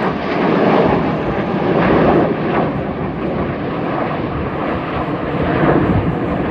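Jet noise from the Red Arrows' BAE Hawk T1 jets flying their display, a loud, steady rush that swells about a second in, again at two seconds and near the end.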